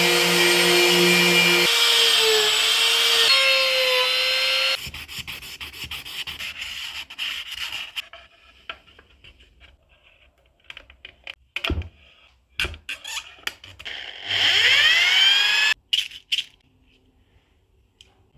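Woodworking on a walnut bowl. A power tool runs with a steady pitched whine for the first few seconds, its pitch stepping a few times, then stops. Scraping, rubbing and light knocks on the wood follow, and the tool runs briefly again near the end, its pitch sweeping.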